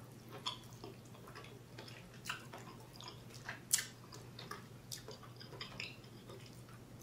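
Close-miked mouth sounds of a person chewing king crab meat: soft wet smacks and clicks, with one sharper smack a little under four seconds in.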